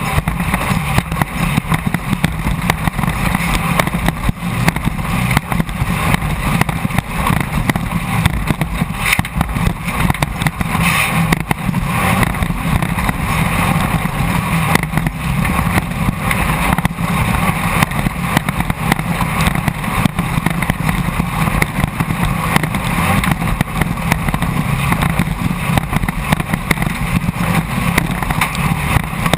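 Air-cooled VW-based 1600 cc engine of a Class 1600 off-road race car running loud and steady at speed, heard from the onboard camera with a rough, dense texture throughout.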